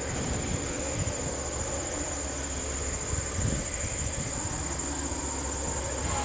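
Distant low rumble of a pair of approaching Canadian Pacific EMD SD70ACu diesel locomotives, under a steady, high-pitched chorus of crickets.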